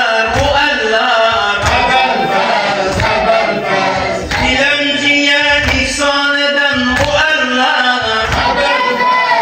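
A group of voices chanting together in a rhythmic mourning chant, with a low thud about every second keeping the beat.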